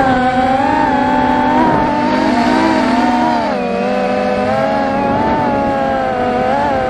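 Racing quadcopter's brushless motors and propellers whining in flight, the pitch drifting and wobbling with the throttle and dipping slightly about three and a half seconds in.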